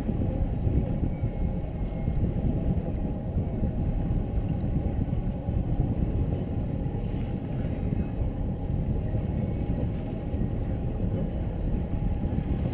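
Twin Suzuki outboard motors running with a steady low rumble and a faint steady hum, mixed with wind buffeting the microphone.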